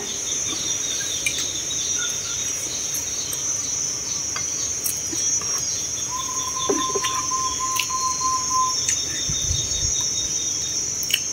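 Steady, high-pitched chorus of insects chirring, with runs of quick repeated chirps over it. A thin steady tone sounds for a couple of seconds midway, and there are a few light clicks of chopsticks and bowls.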